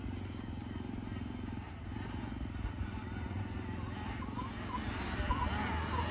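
Sur-ron X electric dirt bike straining up a hill of soft sand, its electric motor and chain drive whirring and the rear tyre churning the sand, getting louder toward the end as it nears.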